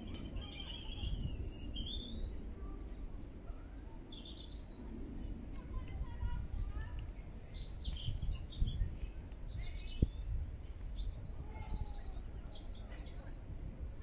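Songbirds chirping and calling in short, high-pitched phrases and trills, one after another, over a low steady background rumble. A single sharp click about ten seconds in.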